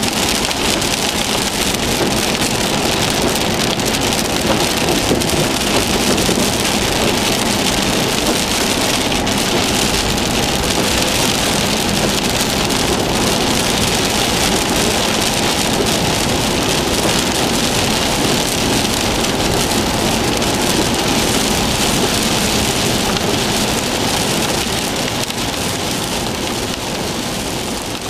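Heavy rain pelting a car's windshield and roof as it drives, heard from inside the cabin, a steady loud rush mixed with road noise that eases a little near the end.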